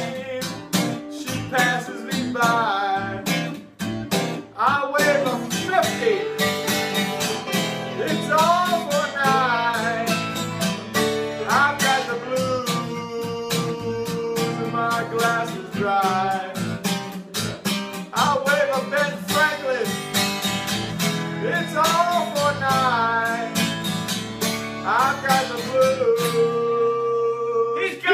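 Two acoustic guitars strumming an Americana blues accompaniment together. A melody line that bends in pitch comes in short phrases over them every few seconds.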